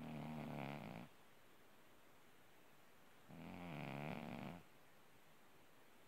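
Orange tabby cat snoring in its sleep: two snores, one right at the start and another about three seconds later, each lasting just over a second.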